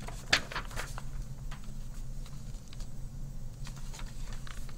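Picture-book pages being turned by hand: paper rustling with a few light taps and handling noises, the sharpest about a third of a second in, over a steady low hum.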